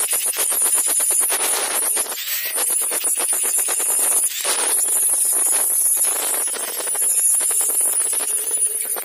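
Angle grinder with a thin cutting disc cutting into metal, a high steady whine under a fast, dense rattle of the disc chattering against the workpiece. It eases off briefly a few times as the disc is shifted.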